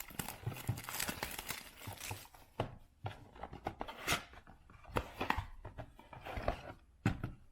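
Cardboard trading-card box being opened by hand: tearing and rustling of the packaging with scattered clicks and taps as the flaps and contents are handled.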